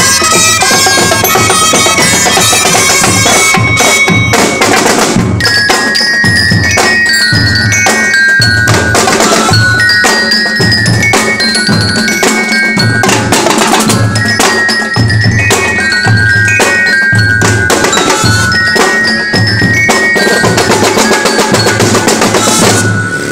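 Street drum and bugle corps playing: held bugle notes at first, then from about five seconds in a drum line of snares, multi-tenor drums and bass drums keeping a steady beat of about one stroke a second under a melody.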